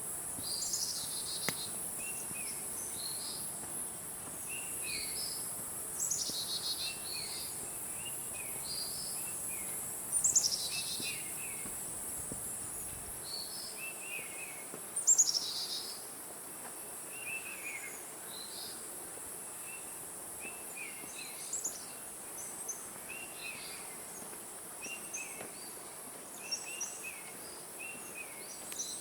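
Tropical forest ambience: a steady high-pitched insect drone, with birds repeating short chirps over and over. Three louder falling trills come in the first half.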